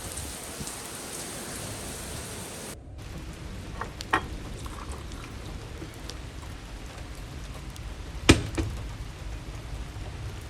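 Steady rain falling, with a couple of sharp taps of drops, the loudest about two-thirds of the way through.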